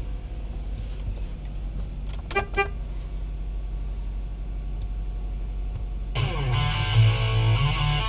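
Car horn tooted twice in quick succession, heard from inside the cabin over the low hum of the engine idling. About six seconds in, electric guitar music begins and becomes the loudest sound.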